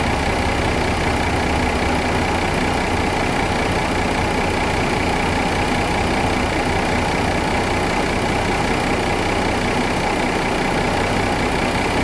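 2014 Mercedes-Benz C300's V6 engine idling steadily, with its cams back in time after a new cam phaser.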